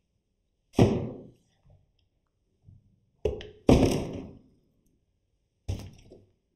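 Plastic household items, a flexible pipe and a spray bottle, dropped into a cardboard box, each landing with a hollow thunk. There is one loud thunk about a second in, two close together around three and a half seconds, and a fainter one near the end.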